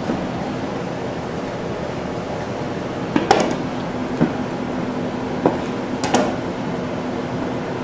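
A butcher's knife cutting beef short ribs apart on a plastic cutting board: a few sharp knocks, mostly in the middle and later part, as the blade and cut rib pieces strike the board. A steady hum runs underneath.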